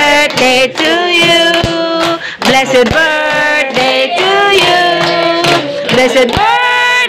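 A song plays: a singing voice holds long, wavering notes over music.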